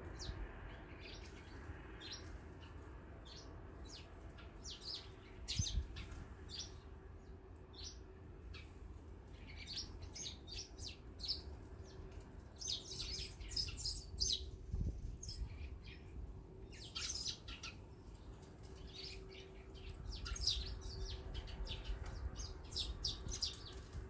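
Eurasian tree sparrows chirping in quick, scattered short calls around a seed feeder, coming thickest in the middle and latter part. Two soft low thumps sound, one near the start and one about midway.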